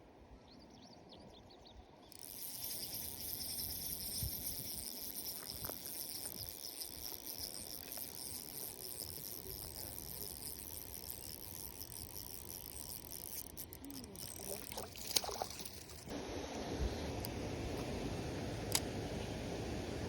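Outdoor ambience with a steady high-pitched chorus of chirping insects over low background noise. About sixteen seconds in, the chirping falls away and a broader rushing noise takes over, with a few light clicks.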